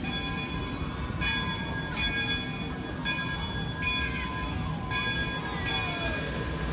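A bell rung over and over, about seven strikes a little under a second apart, each ringing on into the next.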